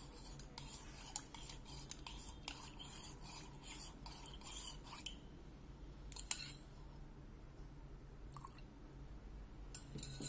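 Metal teaspoon stirring tea in a ceramic mug, clinking against the inside: a quick run of light clinks, about three or four a second, for the first five seconds. Then comes one louder single clink, a fainter one and a few more near the end.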